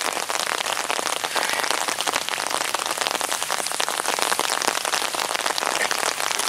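Steady rain falling, a dense patter of individual drop hits.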